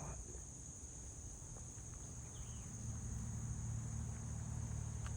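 Steady, high-pitched insect chorus, with a low steady hum underneath that grows a little louder about two seconds in.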